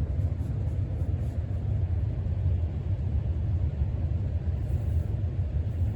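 1993 Casablanca Stealth ceiling fan running on speed 6: a steady low rumble of the motor and the air moving off the blades.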